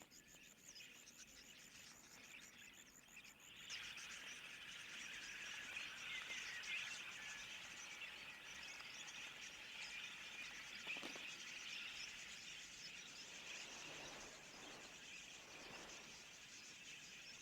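A flock of wild budgerigars chattering: faint at first, then from about four seconds in a dense, continuous mass of many short, high chirps.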